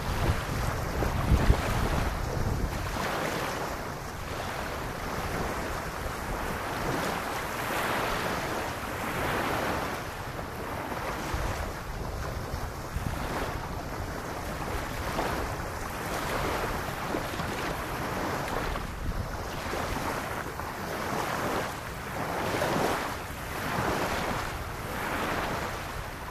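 Small lagoon waves lapping on a sandy beach, the wash swelling and ebbing every couple of seconds. Wind buffets the microphone with a low rumble, strongest in the first few seconds.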